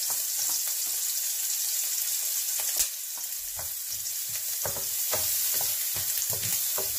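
Chopped onion sizzling in hot margarine in a non-stick frying pan as it is sautéed. There is one sharp tap about three seconds in, and a wooden spatula scrapes and knocks around the pan in the second half as the onion is stirred.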